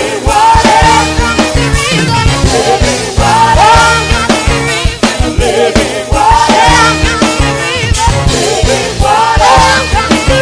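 Live church praise band: a group of singers with a steady drum beat and bass.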